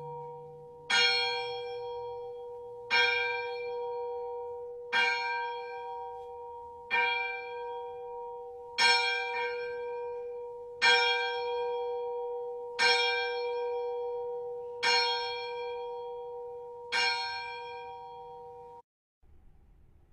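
A single church bell tolling, struck about every two seconds with the same pitch each time, nine strikes in all, each ringing on and fading. The ringing cuts off suddenly near the end.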